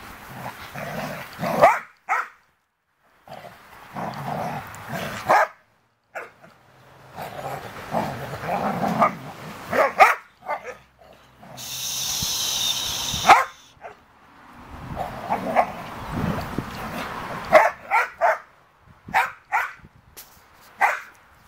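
Adult dogs barking through a wire fence at puppies: short barks repeated at irregular intervals, several in quick succession near the end. About halfway there is a brief high-pitched wavering sound.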